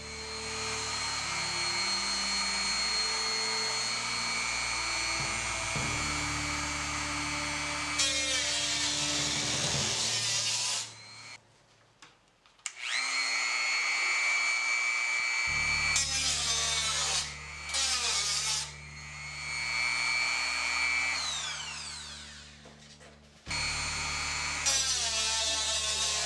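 Dremel rotary tool cutting thin galvanized sheet steel, a steady high whine that stops and starts several times. It cuts out for about two seconds near the middle and winds down in pitch near the end. Background music plays underneath.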